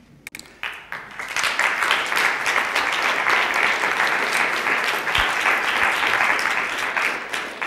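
Audience applauding: a few scattered claps at first, swelling within about a second into full, steady applause.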